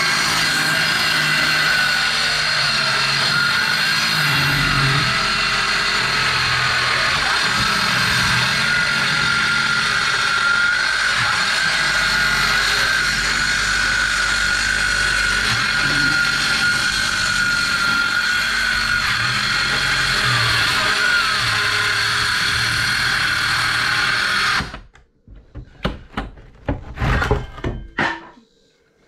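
Power saw running steadily with a wavering whine as it trims the overhanging ends of 1x4 door planks, stopping suddenly near the end; a few knocks follow.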